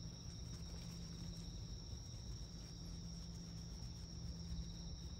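Insects singing, a steady high-pitched tone that runs on unbroken, over a low steady hum.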